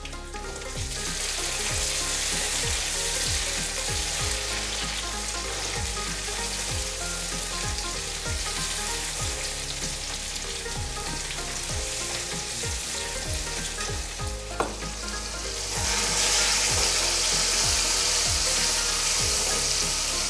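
Chopped tomatoes and onions sizzling in hot mustard oil in a wok over a high gas flame, stirred with a spatula; the sizzle swells about a second in and gets louder again near the end. Background music plays underneath.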